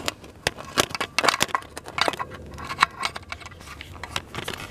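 Irregular plastic clicks and small knocks as a trailer brake controller's wiring connector is handled and plugged into the controller.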